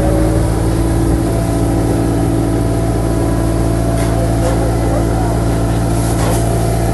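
A boat engine running steadily at a constant speed, with an even low drone.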